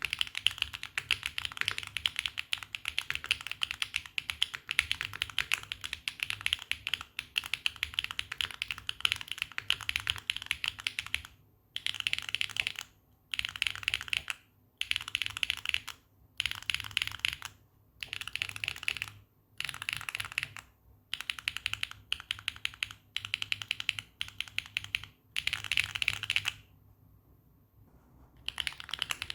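Mechanical keyboard with HMX Snowfall tactile switches on a polycarbonate plate with no foam, typed on with a clacky sound. The typing is fast and continuous for about the first ten seconds, then comes in short bursts with brief gaps. It stops for about two seconds near the end, then starts again.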